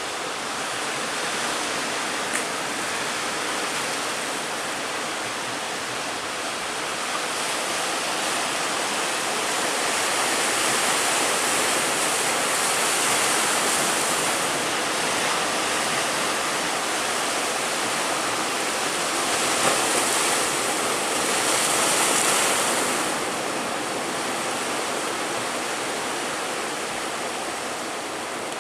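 Heavy ocean surf breaking and washing, a steady rush of water that swells louder twice, in the middle and again a little later.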